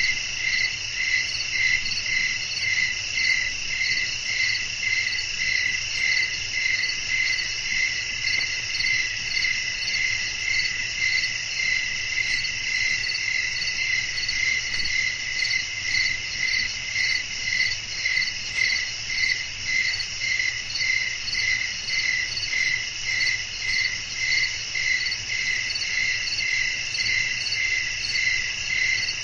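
A chorus of crickets chirping through the night, with one steady rhythm of chirps about twice a second over a continuous high trill.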